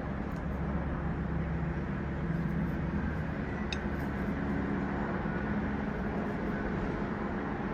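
Steady low rumble with a faint hum underneath, unchanging throughout, with one faint tick a little before the four-second mark.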